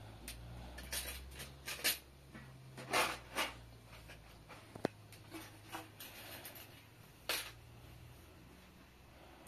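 Scattered cloth rustles and light taps of handling as a sock is pulled on, with one sharp tick about halfway through, over a faint steady low hum.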